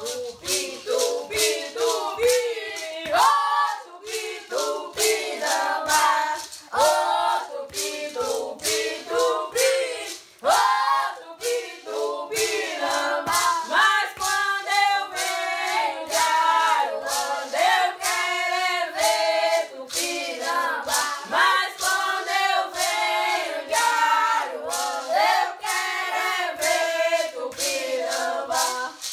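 A group of voices singing a chant over a steady percussive beat of sharp strikes, about two a second, with a brief break about ten seconds in.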